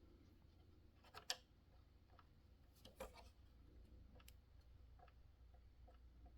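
Near silence broken by a few faint clicks: a projector's power button being pressed, a sharp one about a second in and softer ones near three and four seconds, with no fan or start-up sound following because the projector is not responding.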